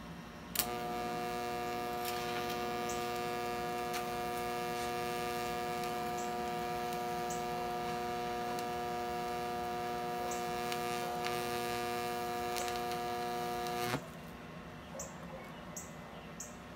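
Hobart TIG welder's arc, struck with a sharp crack about half a second in, then running as a steady electrical hum. It cuts off abruptly a couple of seconds before the end, followed by a few faint high ticks.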